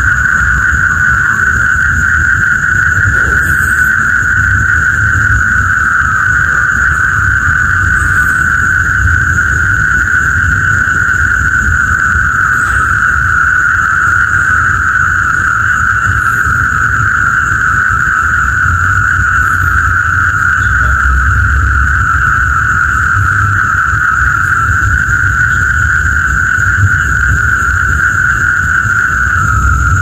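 Dense, unbroken chorus of calling frogs held at one steady high pitch, with a low steady rumble underneath.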